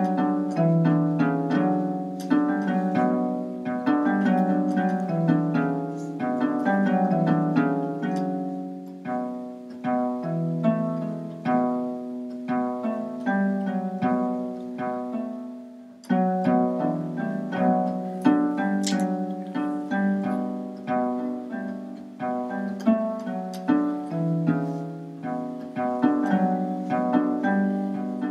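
Background music of plucked strings, a steady flow of quick picked notes; it breaks off briefly about halfway through and starts again.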